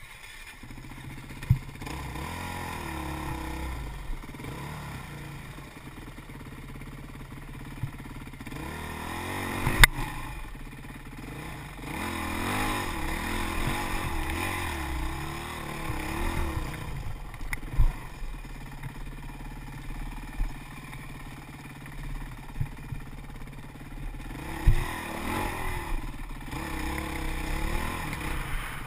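Dirt bike engine running on a rough trail, heard from an on-board camera, its pitch rising and falling with the throttle. Several sharp knocks cut through it, the loudest about ten seconds in.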